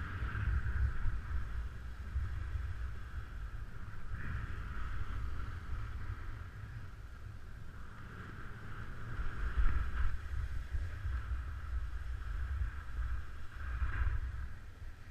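Snowboard sliding over packed snow: a scraping hiss from the board that swells every few seconds as it turns, over a low wind rumble on the camera's microphone.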